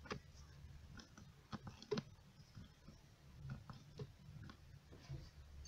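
Hand-operated gear-oil pump being worked: quiet, irregular clicks and small squelching knocks as it pushes oil up a hose into an outboard's lower unit.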